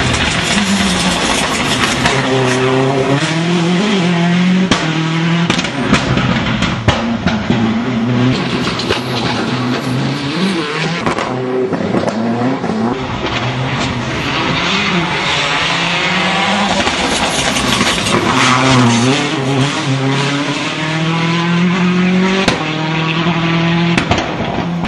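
Citroën C4 WRC rally car's turbocharged 2.0-litre four-cylinder engine revving hard up and down through the gears as the car is driven fast past on tarmac, its pitch rising and falling over and over. A few sharp cracks cut through the engine note.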